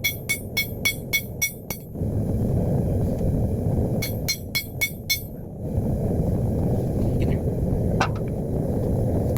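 Hand hammer striking red-hot 5160 spring steel on a steel anvil while drawing out a blade: six sharp ringing blows at about three a second, then a pause, then five quicker blows about four seconds in. Between and after the blows the single-burner propane forge runs with a steady low roar.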